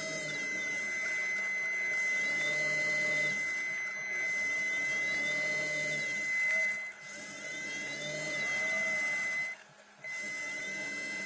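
Electric thruster motors of an underwater vehicle whirring and changing speed, with glides up and down in pitch, over a steady high-pitched whine. The sound cuts out for about half a second near the end.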